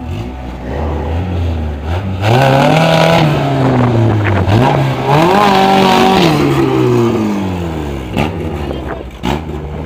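Honda Civic EG6 hatchback's four-cylinder engine running low, then revved hard about two seconds in, rising and falling. A second rev rises and holds steady for about a second, then the pitch falls away as the car pulls off down the strip.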